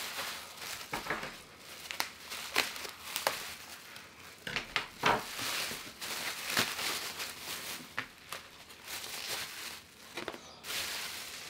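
Bubble wrap being handled and pulled open by hand, with irregular crinkling, rustling and sharp crackles.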